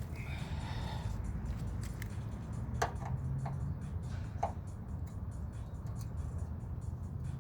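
A few sharp, light clicks and small scrapes of metal parts and screws being handled while taking apart a microwave's casing, over faint background music.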